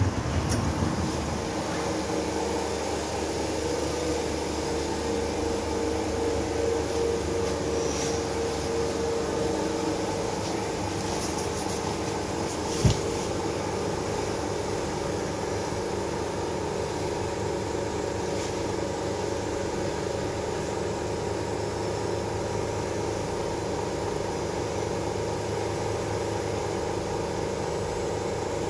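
Steady hum of a Moscow monorail car standing at a station, heard from inside the car. A steady tone runs through the first half and fades, and there is one sharp click near the middle.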